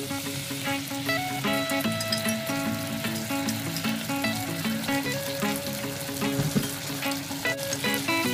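Ingredients for sweet and sour pork frying in a pan, a steady sizzle with small crackles, under light background music.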